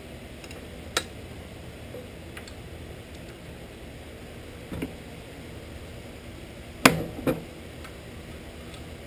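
A few sharp clicks and knocks of metal being handled on the Shopsmith's belt drive as the V-belt and pulley are shifted by hand, the loudest pair a little before the end, over a steady low hum.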